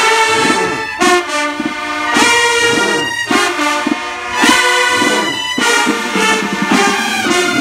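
High school marching band's horn section playing a tune: trumpets, sousaphones and mellophones with clarinets, in loud phrases with brief breaks between them.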